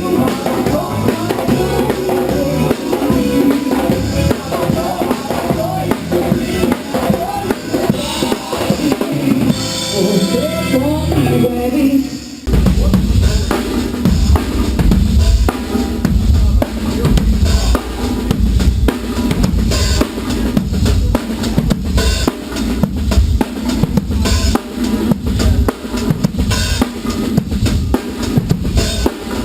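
Acoustic drum kit played in a soundcheck, with bass drum, snare and rim hits. About twelve seconds in, the pitched music under it stops and the drumming becomes a dense, steady beat heavy in the bass drum.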